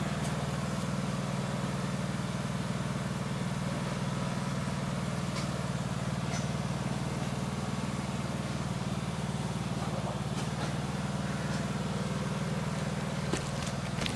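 Lawn mower engine running steadily at a constant speed, a continuous even drone with no change in pitch.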